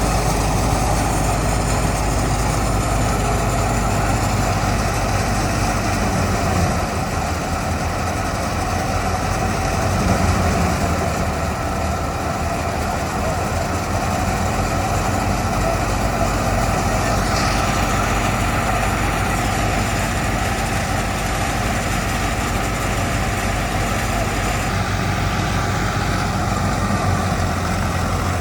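Heavy engine of wheat-harvesting machinery running steadily.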